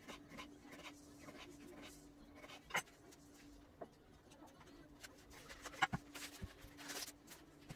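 Light kitchen handling sounds: a knife cutting a tomato on a wooden cutting board, a few scattered knocks and taps as the knife and slices are set down, and a short rustle near the end as a head of romaine lettuce is handled. A faint steady hum runs underneath.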